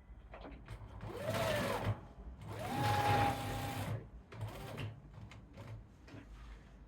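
Electric sewing machine stitching in three short bursts, the longest in the middle. Each time, the motor's whine rises in pitch as it speeds up and drops as it stops.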